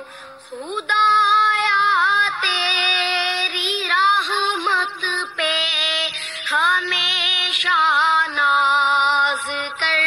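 Background song: a high voice singing long, held notes with wavering ornaments in the pitch, with short breaks between phrases.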